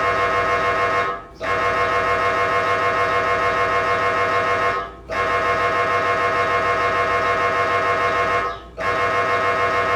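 MRI scanner's gradient coils buzzing loudly with a steady pitch and a rapid, even pulse. It breaks off briefly three times, roughly every four seconds.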